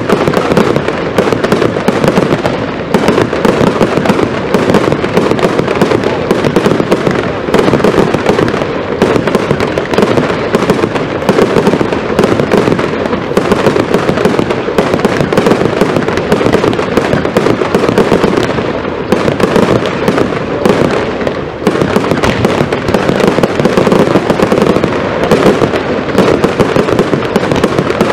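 Zena consumer fireworks firing a dense, unbroken barrage of rapid bangs, with a brief lull about three-quarters of the way through.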